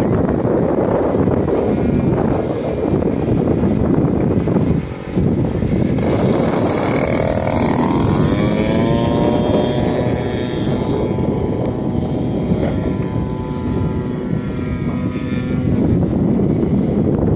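50cc petrol engine and propeller of a radio-controlled aerobatic plane in flight, its buzz climbing in pitch about eight seconds in as the throttle opens or the plane passes, over heavy wind rumble on the microphone.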